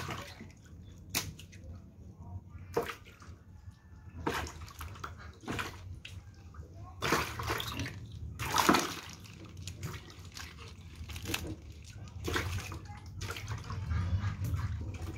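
Wet fish being handled in a plastic basket and rinsed in a basin of water: irregular splashes and sloshes, a dozen or so short ones scattered through, with a louder one about nine seconds in.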